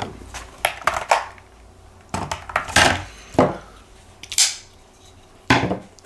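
A series of sharp clicks, clacks and metallic clinks as folding pocket knives are handled, lifted off a stainless-steel kitchen scale and set down. Near the end the Hogue X5's blade is flicked open on its flipper.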